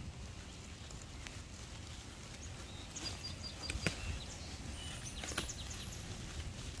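Faint outdoor garden ambience: a low wind rumble on the microphone, with a few light clicks and rustles about three to five seconds in as squash leaves brush close past the camera, and a brief faint high chirp about three seconds in.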